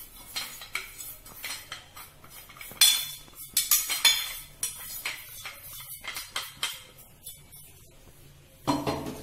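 A stainless steel mixer-grinder jar clinks and taps against a steel plate as ground spice is knocked out of it. The metallic taps and scrapes come irregularly and ring briefly. The loudest come a little after the middle, and a heavier clunk comes near the end.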